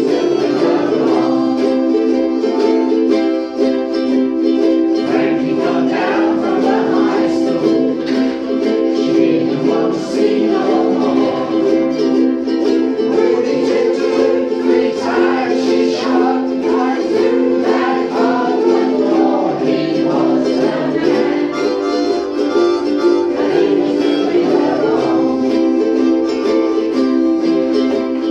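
A group of ukuleles strumming chords together, playing a song.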